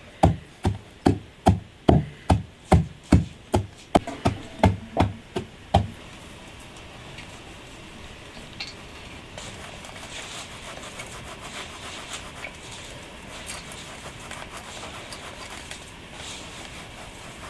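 Steady chopping on a wooden surface, about two and a half heavy strokes a second, stopping about six seconds in. After that come faint, uneven scraping and crackling sounds.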